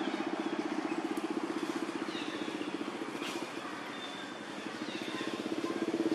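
An engine running steadily with a fast, even pulse, easing off slightly about midway and growing louder near the end. Short falling whistled bird calls sound several times above it.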